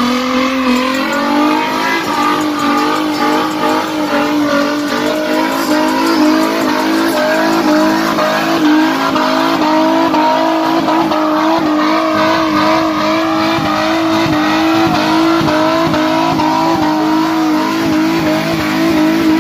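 Nissan Z's V6 held at high, steady revs through a burnout, with the spinning rear tyres squealing on the pavement. The revs drop away right at the end.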